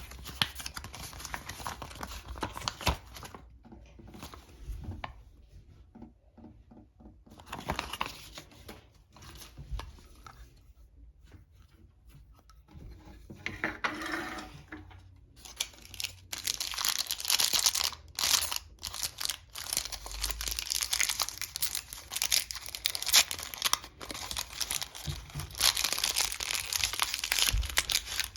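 Packaging of a Mini Brands surprise ball being torn open and crinkled by hand. There are short bursts of rustling at first, then steadier, louder tearing and crinkling through the second half.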